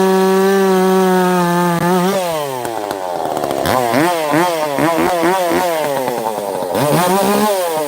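Echo CS-590 two-stroke chainsaw held at full throttle for about two seconds, then dropping back and revved up and down in a string of quick throttle blips before falling back to idle near the end.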